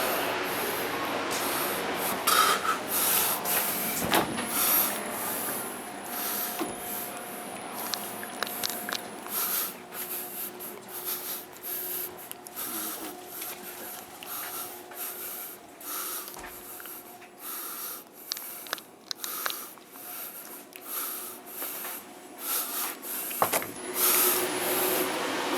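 Ambient noise inside a stationary express train car: scattered clicks, knocks and rustles over a faint steady hiss.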